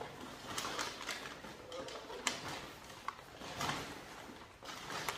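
Rustling of wrapping being handled as a purchase is unpacked, with a few light clicks and knocks.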